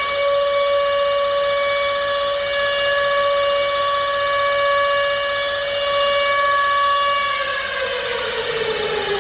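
Civil defense warning siren sounding a steady high tone, then winding down, its pitch falling steadily from about seven and a half seconds in.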